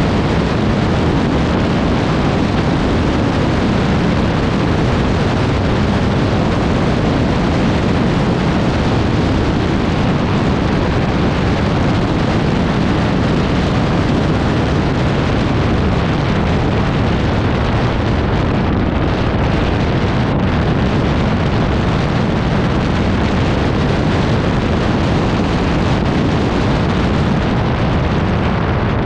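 ATV being ridden: a loud, steady rumble of engine and wind buffeting the microphone, with no clear engine note standing out.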